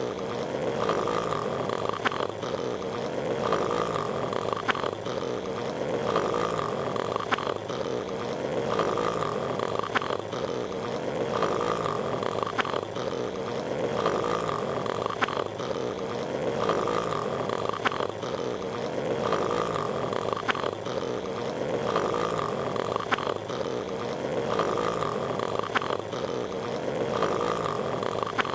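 Cartoon snoring, looped: a snore that rises and falls in even cycles every couple of seconds, with faint regular clicks.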